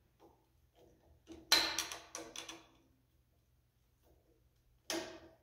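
Screwdriver working the terminal screws of a porcelain lamp holder: a cluster of clicks and scrapes about a second and a half in, and a short scrape near the end.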